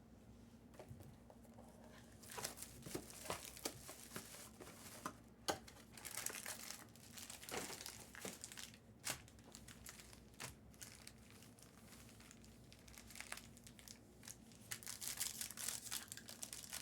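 Faint crinkling and tearing of plastic and foil trading-card packaging as card boxes and packs are opened, coming and going irregularly, busier near the end.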